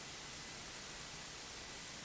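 Steady static hiss on the cockpit audio feed, with a faint thin steady whine and no engine or voices heard.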